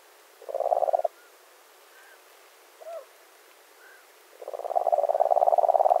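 European nightjar churring: a rapid, dry, pulsed trill, first in a short burst about half a second in, then in a longer burst of about two seconds near the end, with a few faint short chirps between.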